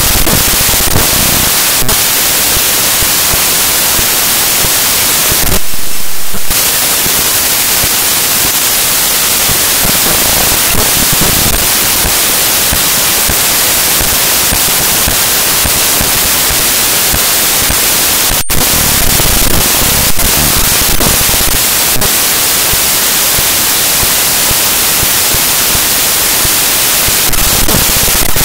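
Loud, steady static hiss with no other sound. The hiss turns briefly harsher about six seconds in and crackles near the end.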